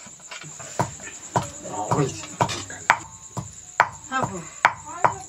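Metal serving spoon knocking and scraping against steel pots and plates as rice and curry are dished out: sharp clinks about once or twice a second. Crickets chirp steadily behind.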